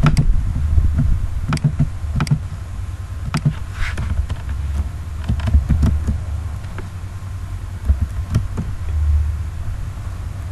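Scattered computer mouse clicks and slow keyboard keystrokes, a few sharp clicks spaced irregularly, over a steady low rumble.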